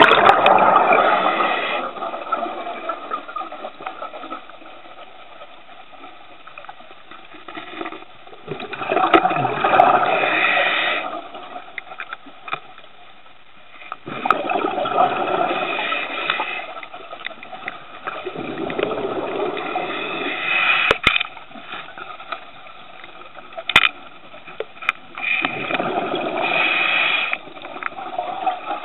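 Scuba regulator exhaust: bubbles rush out in five surges of about two seconds as the diver breathes out, with quieter hiss between breaths.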